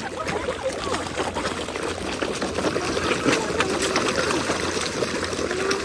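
A crowd of fish thrashing at the water's surface in a feeding frenzy, competing for food thrown to them. It is a steady rush of many small splashes and slaps.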